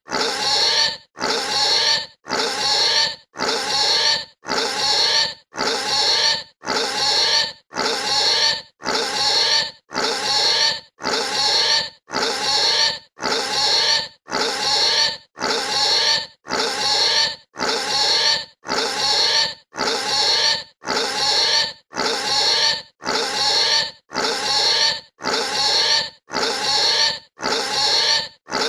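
A pig squealing, one high-pitched squeal of under a second repeated about once a second in an even, unchanging loop with short gaps between.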